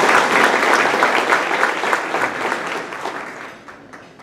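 Audience applauding, a dense patter of many hands clapping that holds loud for about three seconds and then dies away.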